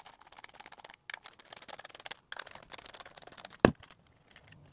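Small clicks and scrapes of a hex screwdriver backing tiny 0.050-inch hex screws out of a metal guitar-pedal enclosure, with one sharper click about three and a half seconds in.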